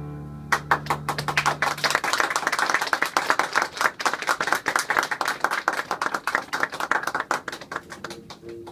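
Audience clapping after a song. It starts about half a second in over the last low note of the violin and contrabass, which dies away, and thins out near the end.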